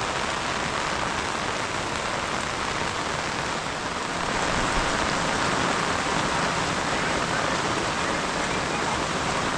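Heavy rain falling: a steady, even hiss of rain with no let-up.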